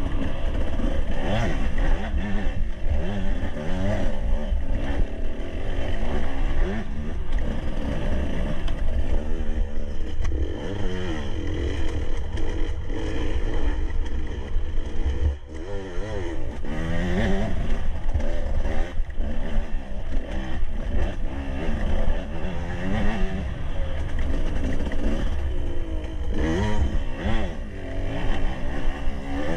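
Dirt bike engine running hard and revving up and down over and over as the throttle is opened and closed along a rough forest trail. It eases off briefly about halfway through, then picks up again.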